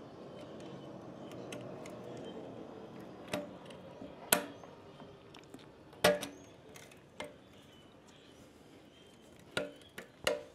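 Sharp metallic clicks and clinks of a spring puller and a steel side-stand spring being hooked onto a motorcycle kickstand, scattered through, the loudest about four and six seconds in and a quick cluster near the end.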